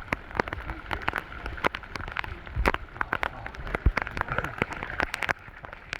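Torrential rain falling hard, with many sharp, irregular taps of heavy drops striking close by.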